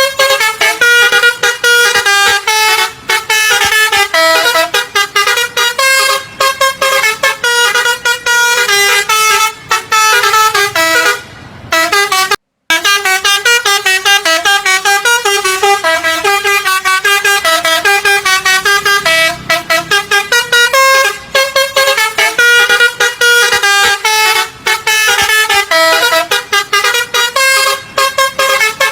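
Bus telolet horn of the basuri multi-tone type playing quick melodic runs of stepped tones, tune after tune, breaking off briefly about twelve seconds in.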